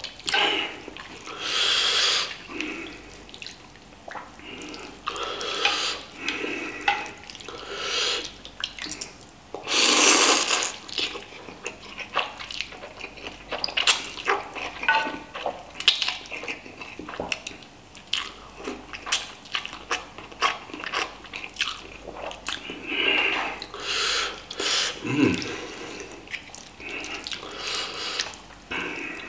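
Person slurping instant noodles in spicy broth with wet chewing, several drawn-in slurps of a second or two each, the longest and loudest about ten seconds in. Short clicks of wooden chopsticks against the pan in between.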